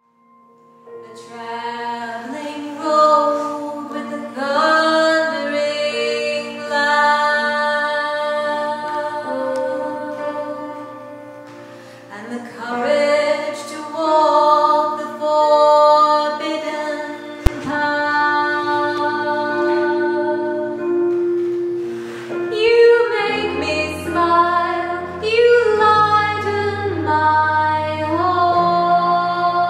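A woman singing a slow melody of long held notes over a steady low drone. Lower notes join the drone in the second half, and there is a single sharp click a little past halfway.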